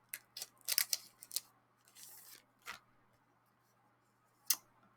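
Paper and plastic packaging being handled and opened: a few crisp crackles and clicks in the first second and a half, a short rustling slide around two seconds in, then two single clicks.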